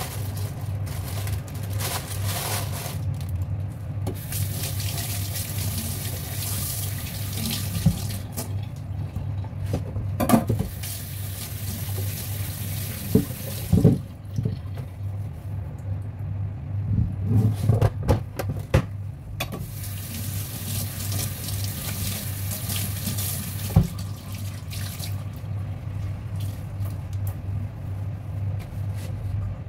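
Tap water running into a stainless steel kitchen sink in two long stretches while things are rinsed under it, with several knocks of a knife and chopping board against the sink around the middle. A steady low hum runs underneath.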